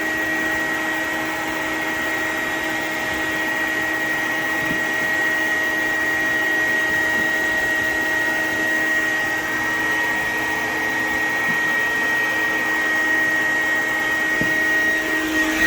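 Bee vacuum running steadily, its motor whine held at one constant pitch over the rush of air, as it sucks live honeybees off an exposed hive.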